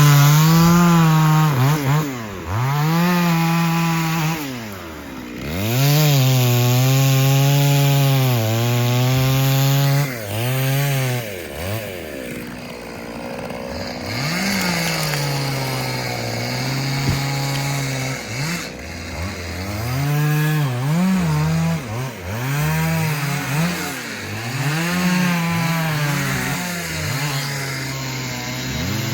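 Chainsaw running at high revs while cutting through a tree, its engine note repeatedly dropping as it loads in the cut and climbing back.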